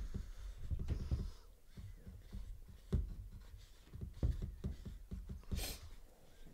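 Paintbrushes scratching and dabbing on canvas, with occasional low knocks against the table near the microphone and a brief hiss about five and a half seconds in.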